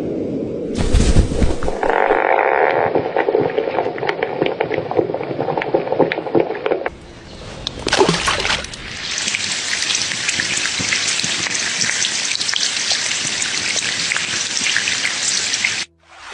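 Nature recordings of water, rain-like and trickling, in several short segments cut together. A steady, even hiss fills the second half, and the sound cuts off abruptly just before the end.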